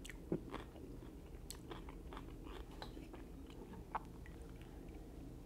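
Faint chewing and mouth sounds of a person eating a mouthful of rice, with scattered small clicks and a slightly sharper knock about four seconds in.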